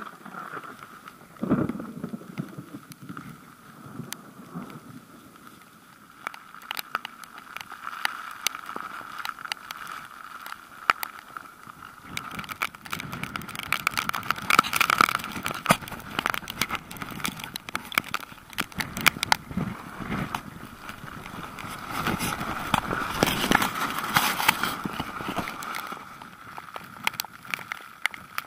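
Strong gusty wind buffeting the microphone, with many sharp crackles of rain hitting it. The gusts swell loudest about halfway through and again a few seconds before the end.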